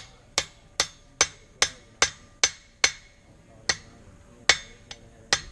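Blacksmith's hand hammer striking the hot end of a mild-steel nail held in a nail header over the anvil's hardy hole, forging the nail head. There are about eleven ringing strikes: a steady rhythm of about two and a half a second, then slower blows with longer gaps in the last two seconds.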